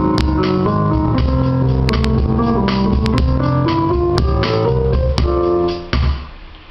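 Roland RD-300GX digital stage piano playing a bossa nova pattern from its built-in rhythms, with chords, bass and light drums, ending on a final chord about six seconds in that dies away.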